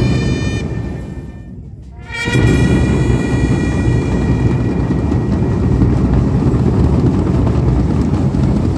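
Military marching drum band playing a held brass chord over a rolling drum rumble. The first chord cuts off about half a second in and the sound dips, then a loud new chord with drum roll comes in about two seconds in and holds.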